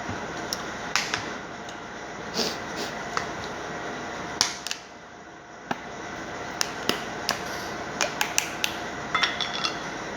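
Dishes and cutlery clinking, a string of short sharp clicks, over a steady background noise that dips briefly in the middle.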